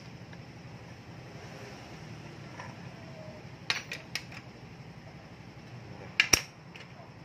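Metal hand tools clicking and knocking against the scooter's crankshaft end and variator: three light clicks about halfway through, then two sharp, loud clacks in quick succession near the end, over a steady background hiss.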